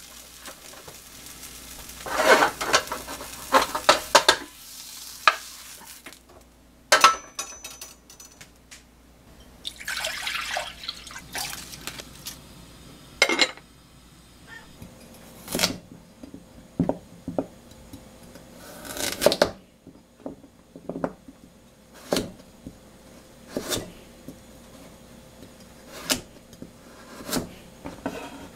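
Kitchen work sounds: water poured or running in a few short bursts, then a string of separate clinks and knocks from pots, lids and utensils.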